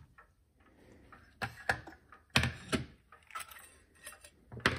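A string of short, sharp clicks and taps from a screwdriver and small steel clock parts being handled on a wooden workbench as the slave clock movement's mounting screws are taken out and the movement is lifted free.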